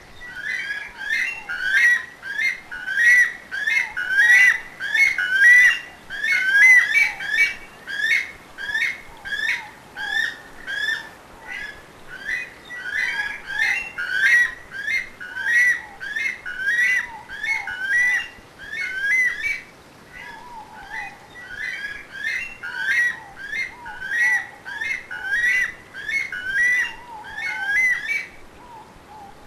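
Weka calling: a long run of loud, rising whistled notes, about two a second, with fainter lower notes beneath. The calling stops shortly before the end.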